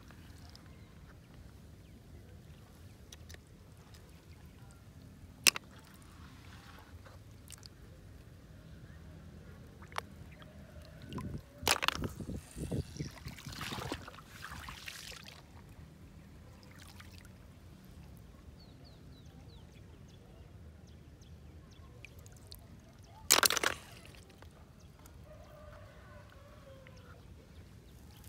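Hands sloshing and splashing in shallow lake water while searching for snails, with a burst of splashing in the middle. A few short, sharp knocks stand out, the loudest one near the end.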